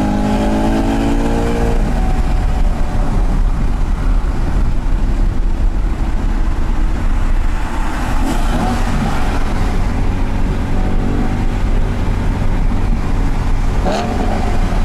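BMW M3 E92's V8 engine pulling through the gears, heard from inside the cabin: its pitch climbs for about two seconds, breaks at a gear change, then runs steadier and climbs again around the middle and near the end, over steady road noise.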